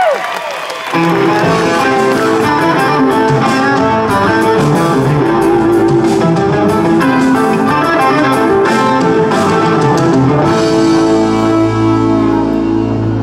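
Live band music: electric guitar playing a riff over bass guitar and drums, with the full band coming in about a second in as a gliding violin line dies away.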